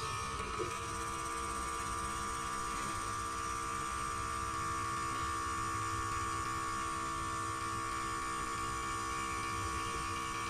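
Small electric motor of a mini wood lathe converted into a drill press, running at a steady speed with an even hum and a high whine.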